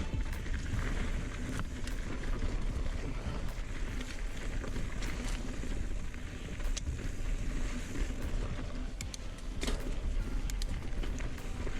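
Ibis Ripmo AF mountain bike riding a dry dirt trail: wind rumbling on the camera microphone over tyre crunch, with scattered sharp clicks and rattles from the bike over the bumps.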